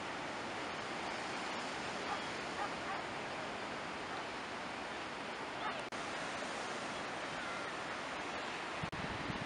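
Steady wash of sea surf over a rocky shore, an even rushing noise with no distinct wave breaks.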